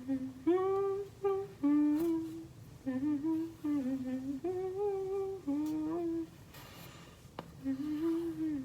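A woman humming a tune to herself in a small room: a string of held notes that step up and down in pitch, pausing about six seconds in, then one more short phrase near the end. A single faint tap comes during the pause.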